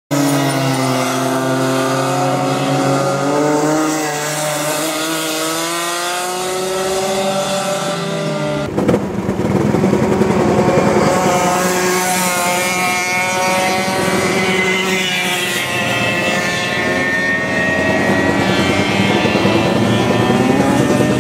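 Racing kart engines buzzing as several karts lap the track, their pitch rising and falling as they accelerate and brake. The sound jumps abruptly about nine seconds in.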